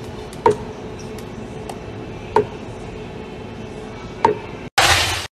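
A scoop tapping sharply against a blender pitcher three times, about two seconds apart, as scoops of vanilla bean powder go in. After a sudden break near the end comes a loud, harsh rush.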